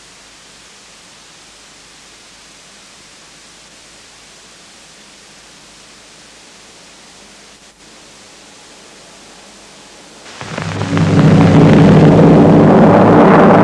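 Steady hiss from a blank stretch of VHS tape. About ten seconds in, a loud, deep swell rises quickly and holds.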